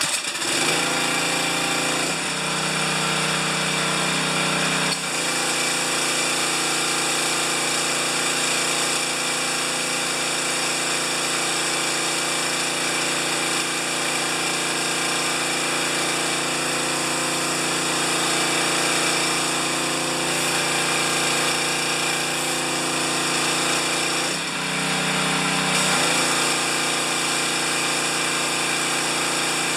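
Gas engine of a 2,700 PSI pressure washer catching right after a recoil pull and then running steadily with its pump. Its note changes abruptly about five seconds in and again briefly near the end. It starts and keeps running, the hard-starting fault not showing this time.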